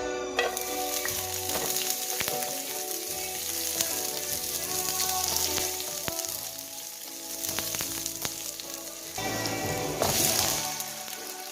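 Food sizzling and crackling as it fries in hot oil, starting just after the beginning.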